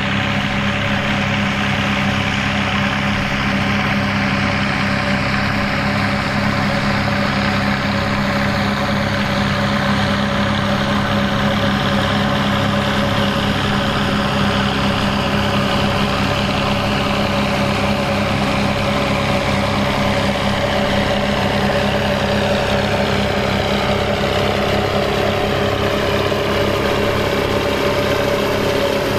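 Fiat 800 tractor's turbocharged four-cylinder diesel engine running steadily under load.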